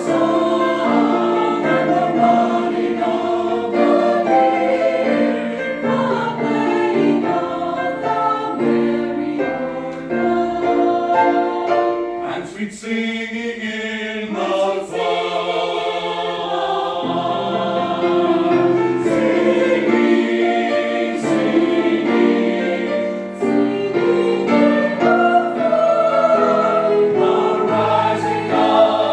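Church chancel choir singing a Christmas anthem in several parts, with sustained chords changing note by note; the sound thins briefly about halfway through before the full choir comes back.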